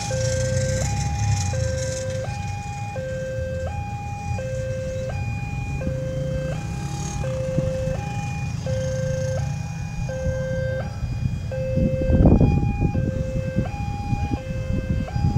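Railway level-crossing warning alarm: an electronic two-tone signal switching back and forth between a higher and a lower note, each held about three-quarters of a second, repeating steadily. Underneath is a low rumble, with louder noisy gusts about twelve seconds in and near the end.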